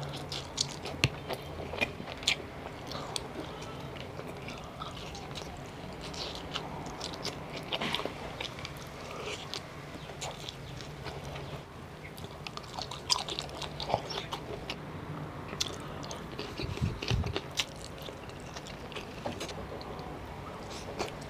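A man biting and chewing chicken-innards adobo with rice: irregular moist mouth clicks and crunchy bites, with no talk.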